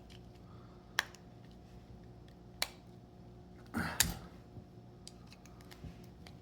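A performance chip module's casing being pried at by hand: a few sharp clicks, with a brief louder scrape about four seconds in, as the glued casing resists opening.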